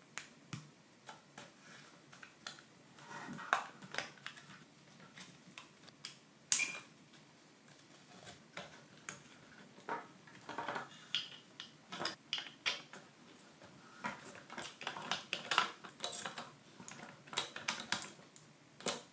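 Small wooden kit pieces being handled and fitted together: irregular light clicks and taps with brief scraping, the sharpest click about six and a half seconds in.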